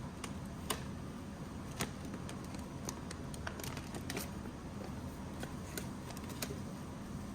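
Ambience inside a large warehouse store: a steady low rumble with scattered sharp clicks and taps every half second or so, typical of a shopping cart and goods being handled.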